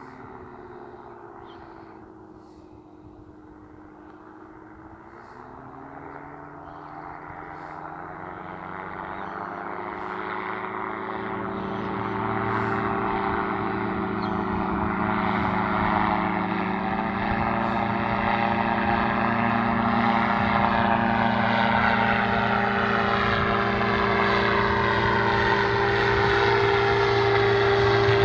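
Paraplane powered paraglider trike's engine and pusher propeller droning as it flies in and overhead, growing steadily louder; the pitch dips and then rises a few seconds in.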